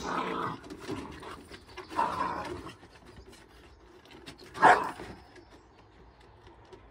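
Small dogs play-fighting, growling and barking in three short outbursts, the loudest and sharpest about four and a half seconds in. The growls are play, part of their normal rough style of play.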